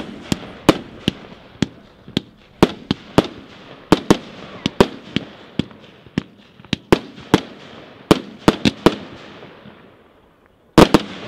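Consumer firework compound cake firing a rapid series of sharp bangs, about two a second, with crackling between them. There is a short lull near the end, then a loud double bang.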